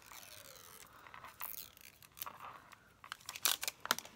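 Hands handling a plastic eyeliner pen: crinkling and scraping noises, then a quick run of sharp plastic clicks in the last second or so, the loudest part.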